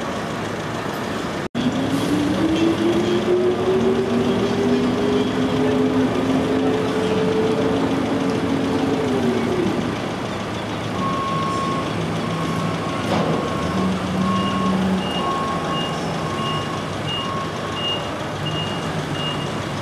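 A vehicle engine revving up, holding its pitch for several seconds and then dropping back. It is followed by a reversing alarm beeping steadily, a little more than once a second, joined partway through by a second, higher-pitched reversing beeper.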